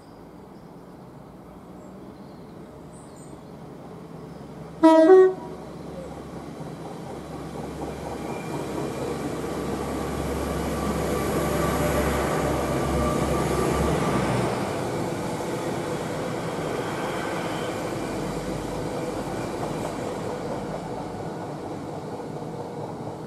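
Hitachi Intercity Express Train sounding a short two-tone horn blast about five seconds in as it approaches. It then passes, its wheel and rail rumble building to a peak around twelve to fourteen seconds and fading as it draws away.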